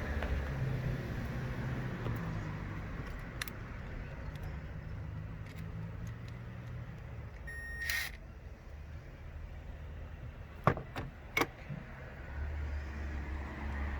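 Hose clamps and tools being handled in a car's engine bay: a few sharp metallic clicks about ten and eleven seconds in, the loudest sounds, over a low steady rumble. A short beep sounds around eight seconds in.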